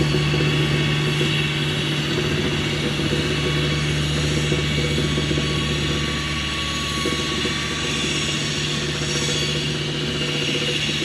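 Steady low hum of an electric train at the station, with a fainter higher tone over it, easing off slightly towards the end.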